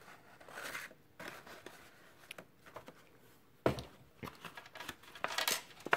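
Rustling and light tapping of a folded card-stock gift box being handled while twine is tied around it, with one sharp knock a little past halfway as the box is set down on the table, and a few small clicks and rustles near the end.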